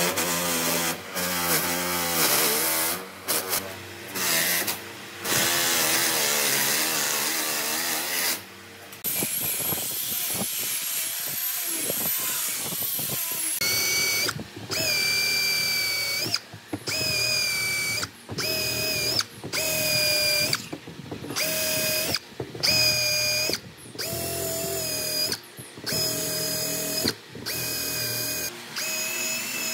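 Electric angle grinder with a sanding disc run against weathered hardwood, its motor pitch wavering under load. From about halfway, a cordless drill spins a mounted abrasive stone in holes in the wooden slats, in repeated short bursts with a steady whine, roughly one a second.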